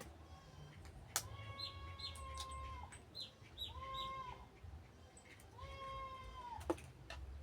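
An animal calling repeatedly: three long, even calls, each held for up to about a second and a half and dropping at the end. Two sharp clicks land near the start and near the end.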